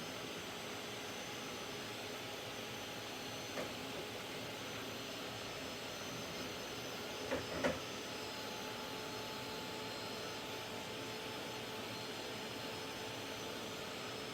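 Handheld craft heat tool blowing steadily, part-drying a wet paste layer. A few faint knocks come about 3.5 and 7.5 seconds in.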